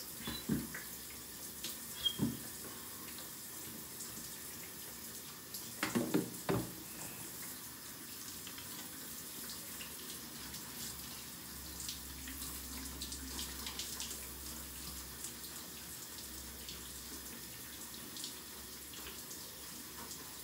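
Shower water running with a steady hiss of spray, broken by a few brief louder sounds about two and six seconds in.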